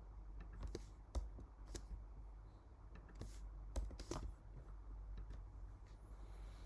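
Typing on a computer keyboard: irregular key clicks in short spells over a low steady hum.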